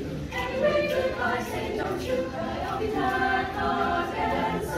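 Mixed-voice high school show choir singing, with sustained notes in several parts and a short break between phrases just after the start.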